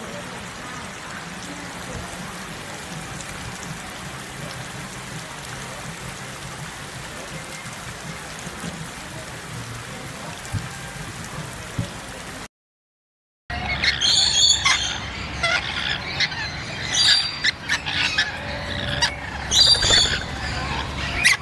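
A steady stretch of outdoor background noise, then after a cut a louder flurry of short, high squawks and chirps from farm birds calling over one another.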